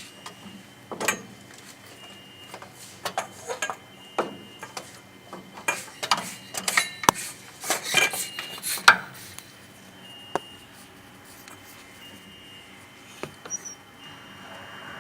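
Irregular clicks and taps of small hard parts and tools being handled, densest in the first two-thirds. A rising motor-like whine starts just before the end.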